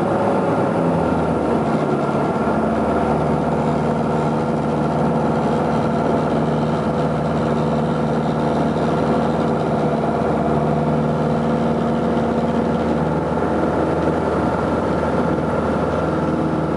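Steady engine drone heard from inside a moving vehicle, with several constant tones over a low rumble and no change in pitch.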